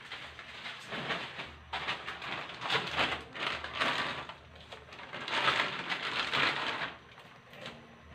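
Dry bihon rice-noodle bundles and their plastic packaging being handled, crinkling and crackling in irregular bursts.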